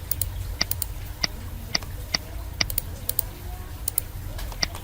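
Irregular sharp clicks of someone working a computer's mouse and keys, roughly one every half second, over a low steady hum.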